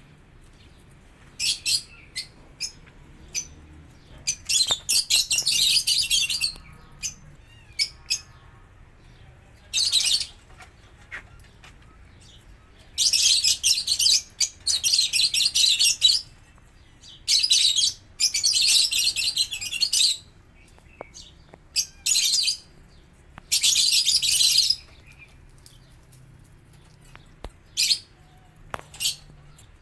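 Small caged birds in an aviary chirping in loud, high-pitched bursts of one to three seconds, with short quiet gaps and scattered single chirps between them.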